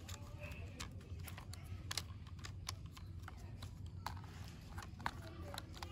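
Light scattered clicks and taps of hard plastic parts as a toy bicycle's front wheel is fitted onto its axle and the toy is handled, over a faint steady low hum.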